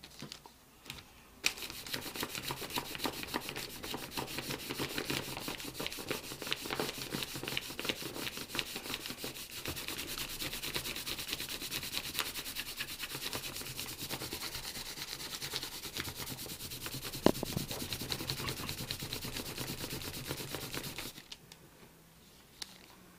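Folded paper rubbed rapidly back and forth on dark blue denim, a rub test for whether the fabric's dye comes off. The quick scrubbing strokes start about a second and a half in and stop near the end, with one sharper knock partway through.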